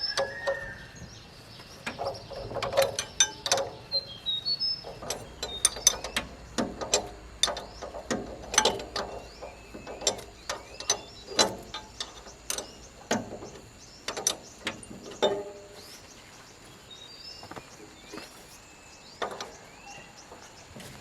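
Irregular metallic clinks and knocks of hand tools working on tractor parts, dense for most of the time and thinning out near the end.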